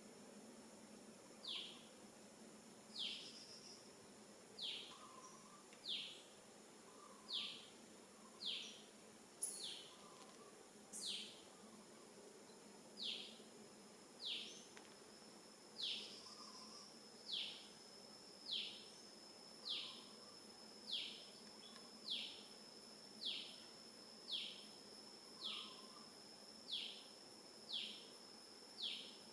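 A bird repeating a short, high whistle that slides downward, about once every one and a half seconds, over a steady high insect drone.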